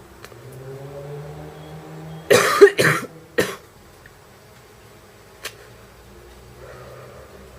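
A woman coughing three times in quick succession, a mild wet, barking smoker's cough brought on by smoking.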